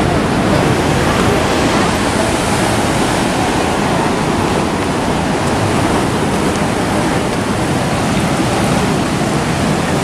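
Steady rushing noise of ocean surf washing over the rocks at the foot of a seawall, mixed with wind.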